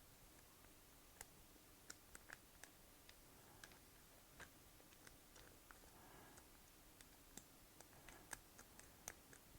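Faint, irregular small clicks and ticks of a lock pick and tension wrench working the pins inside a doorknob's pin-tumbler lock, a dozen or so scattered through a near-silent room.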